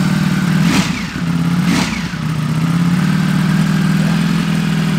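Stock Ducati Panigale V4's V4 engine idling on its standard exhaust, running loud and steady just after start-up. Two short sharp noises come about a second apart, near the start.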